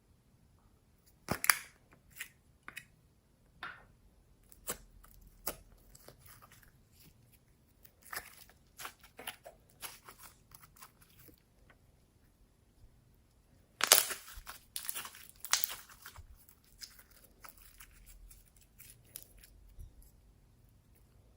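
Slime being squished and stretched by hand, giving irregular sticky pops and crackles, with a dense cluster about a second in and another loud flurry about two-thirds of the way through.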